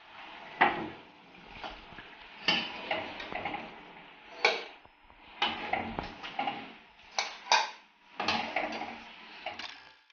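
A steel ladle clinking and scraping against a steel kadai and a steel serving bowl as curry is ladled out: about a dozen sharp clinks with a short ring, spaced irregularly.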